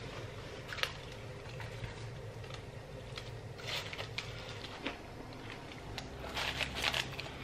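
Someone eating a crispy McDonald's hash brown: faint crunching bites and chewing, with a denser run of crunches near the end.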